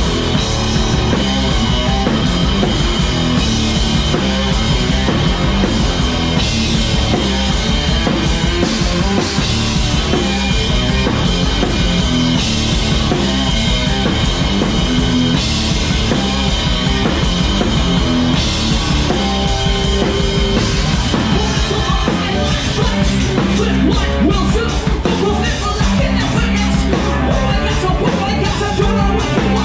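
A live rock band playing loud and without a break: drum kit, distorted electric guitars and bass, heard from the stage behind the drums. The drum hits stand out more sharply over the last third.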